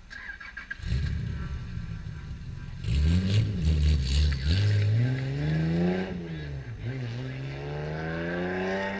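Race car engine starts about a second in, revs, then pulls away under acceleration, its pitch rising through one gear, dropping at an upshift about six seconds in and rising again.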